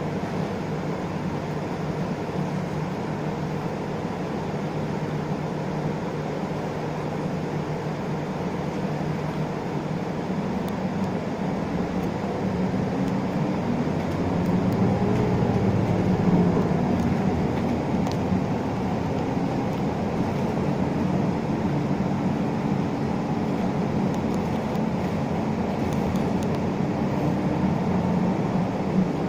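Isuzu Erga city bus under way, heard from inside: a steady diesel engine hum with road noise. Around the middle the engine note rises and falls and grows louder for a few seconds as the bus pulls away or accelerates.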